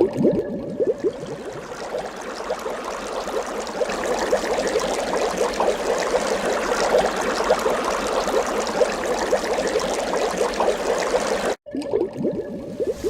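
Running water of a brook, flowing and splashing steadily.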